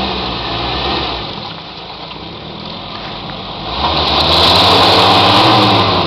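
Off-road 4x4's engine pulling under load up a muddy, rutted track. The revs ease off, then rise loudly about four seconds in and hold.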